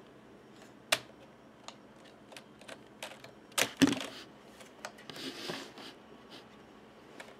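A baby's hands pressing and slapping the keys of a computer keyboard: scattered, irregular key clicks, with a loud cluster of presses about three and a half seconds in.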